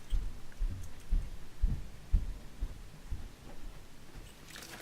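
Irregular, low, muffled thuds and bumps, about a dozen over a few seconds, the loudest near the start and just before the halfway point: handling noise as the drill bits and their case are moved about on the table.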